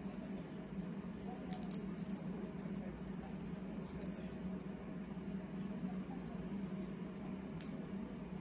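Feather cat-teaser wand rattling in quick, irregular shakes as it is waved about and batted by a cat, over a steady low hum.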